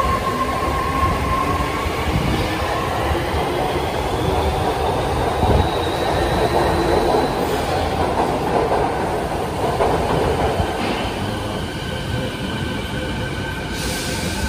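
Kobe City Subway train pulling out of the platform, its motor whine rising in pitch as it speeds up, with the rumble of wheels on rail. The sound eases slightly as the last car leaves.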